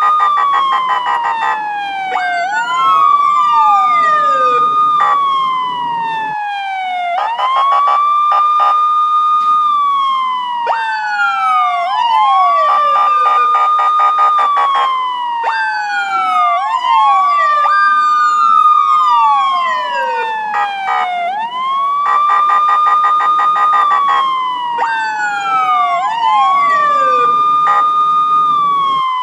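Police car siren wailing: each cycle rises quickly, holds high, then falls slowly, repeating every few seconds, with more than one wail overlapping.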